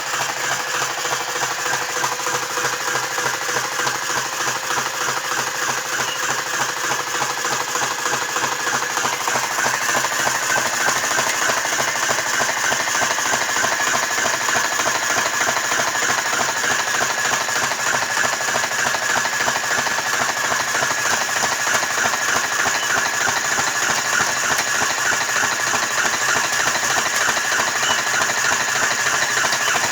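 Motor-driven Topomatic-type cigarette tube filling machine with a tobacco hopper running continuously, its mechanism clattering in a rapid, steady rhythm as it fills tubes one after another. It gets a little louder about a third of the way in.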